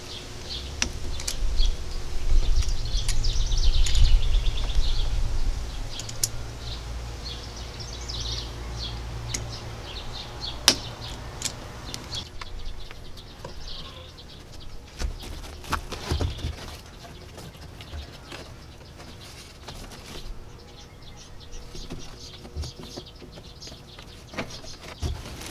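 Small birds chirping, with scattered sharp clicks of plastic drip-irrigation fittings and a hole punch being worked on half-inch drip tubing. A low rumble runs through the first twelve seconds, then stops.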